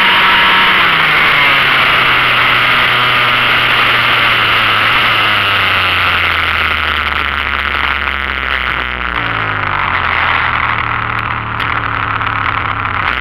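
Small motorcycle engine heard from on board, its note falling over the first few seconds as it eases off, then running steadily at low revs over a constant rush of wind and road noise. The engine note drops again to a lower, slower idle about two thirds of the way through.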